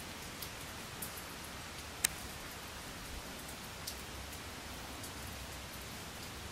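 A steady soft hiss with a few faint, scattered ticks.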